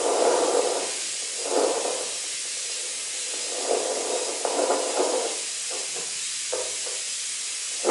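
Handheld fetal Doppler monitor giving a steady hiss of static with uneven whooshes as the probe searches for the baby's heartbeat during labor.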